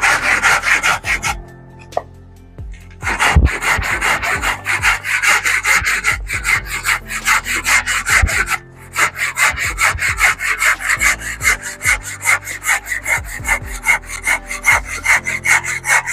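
Handsaw cutting through a block of very hard, dense timber in quick, even back-and-forth strokes, with a short break about a second and a half in and a brief one about halfway. The crisp, biting rasp is taken as the sign of a very sharp saw.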